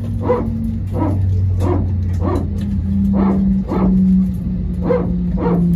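Short, sharp calls repeated about every two-thirds of a second over the steady hum of the Airbus A321's engines idling as it taxis.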